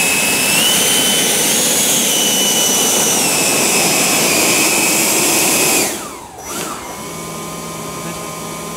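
RC Harrier jet model's motors running on the ground with a loud, high whine whose pitch steps up and down with the throttle. About six seconds in the whine winds down in a falling glide to a much quieter steady hum.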